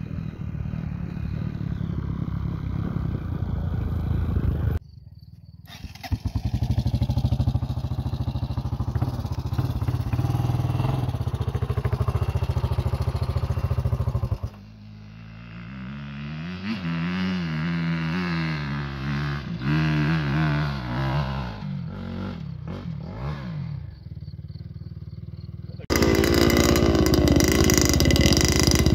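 Dirt bike engines revving and pulling hard on steep hill climbs, in several short clips that break off abruptly. In the middle stretch the engine pitch rises and falls again and again as the throttle is worked.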